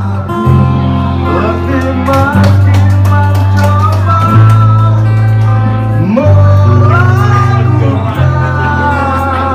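Music: a melody that slides between notes, over steady held bass notes.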